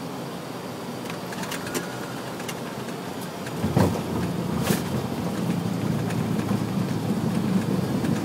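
Boeing 737-300 landing rollout heard from inside the cockpit: a steady rush of air and rumble, then about three and a half seconds in a heavy thump, after which the low rumble builds steadily. A few sharp clicks sound early on and just after the thump.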